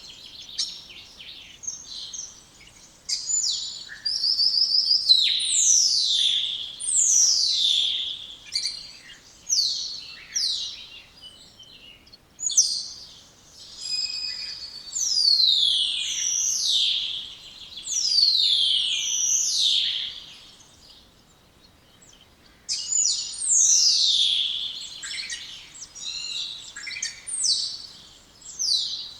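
Spotless starling singing: a run of loud, falling whistles mixed with clicks and short buzzy notes, with a brief pause about three-quarters of the way through.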